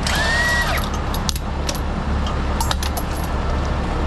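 Heavy truck engine running steadily, with a short high squeal at the start and a few sharp metallic clinks partway through.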